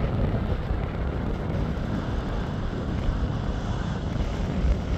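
Jet engine noise from a KLM Boeing 777 rolling along the runway: a steady, low rumbling haze mixed with wind on the microphone.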